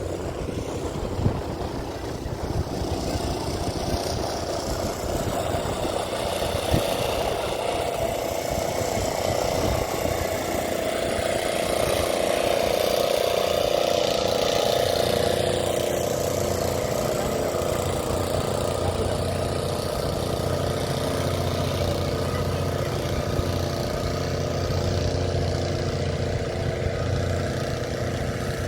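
Engine running steadily, a little louder about halfway through.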